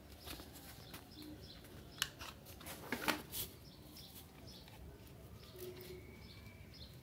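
Hands handling and tying up a glasses case, with a few sharp clicks and knocks, the loudest about two and three seconds in. Faint bird chirps in the background.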